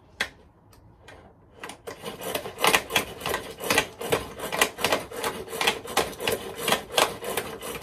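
Hand-pulled cord food chopper (Bunbun Chopper) chopping onion. The cord is yanked again and again, each pull a rasping stroke as the blades spin, about two or three a second, starting about two seconds in.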